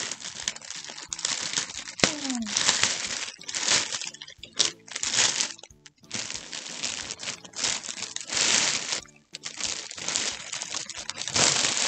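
Clear plastic poly bag crinkling and rustling in a run of loud bursts as a backpack is worked out of it.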